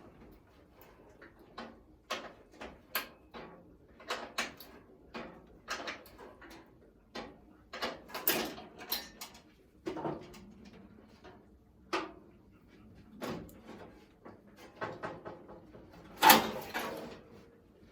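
Irregular clanks, clicks and knocks of hand tools and metal parts being handled while the hood is unbolted from a vehicle, with one louder knock near the end.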